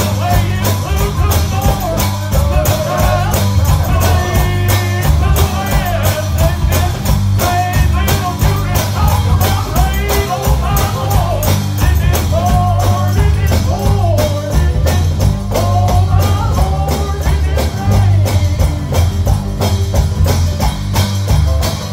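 Live gospel band playing an upbeat song with a steady, driving beat, heavy bass and evenly spaced percussion strikes, a wavering lead melody running over it.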